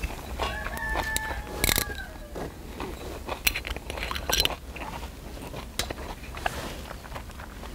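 Metal screw cap being twisted off a green glass soju bottle: sharp clicks as the seal ring breaks, clustered around three to four and a half seconds in, with a few more later. About half a second in there is a short squeaky tone that jumps between a few pitches and ends in a click. A low steady rumble runs underneath.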